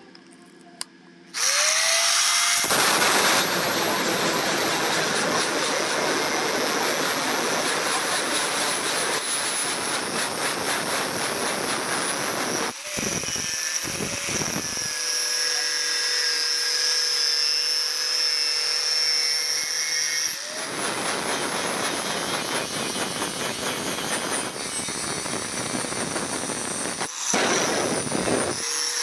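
Angle grinder with a flap disc switching on about a second in, its motor whine rising as it spins up, then grinding the steel edge of a knife blade cut from a bike sprocket: a loud, steady rasping hiss. The grinding breaks off briefly around the middle and again near the end, leaving the motor's whine.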